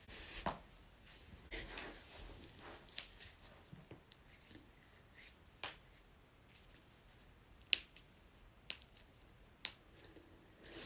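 Joints cracking: a string of sharp pops at irregular intervals, the loudest three coming near the end about a second apart.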